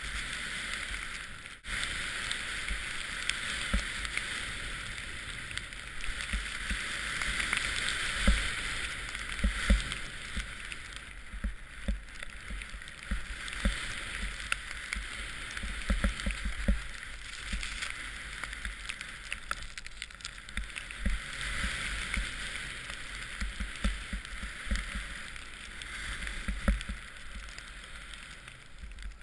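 Snow hissing steadily under a rider carving down through deep powder, swelling and fading with the turns, with wind buffeting the helmet-camera microphone in low rumbling gusts.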